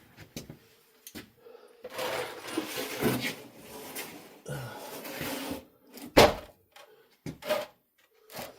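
Rummaging and clattering of things being handled, with a sharp knock about six seconds in and a few lighter knocks after it.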